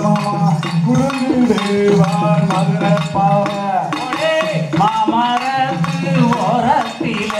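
Valli kummi folk song: voices singing a Tamil folk melody over a regular percussive beat, played loud.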